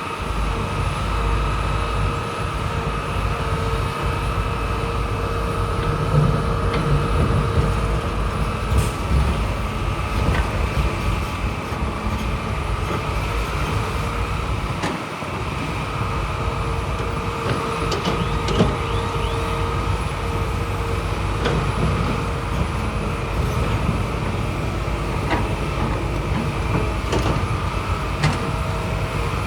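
Heavy diesel earthmoving machinery, such as a crawler bulldozer, running steadily under load with a steady whine over the engine noise and a few faint clatters.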